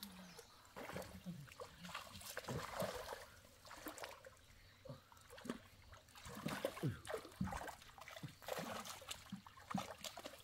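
Shallow, muddy pond water splashing and trickling irregularly as a seine net is gathered in by hand while people wade and crouch in it.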